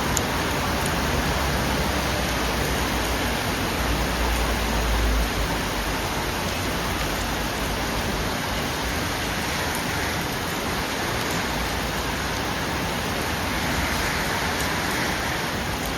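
Steady rain falling, an even hiss with a brief low rumble about four seconds in.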